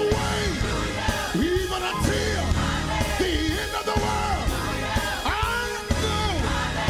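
Live gospel praise-and-worship music: a church band with heavy bass and drums, with a worship leader and choir singing and shouting over it.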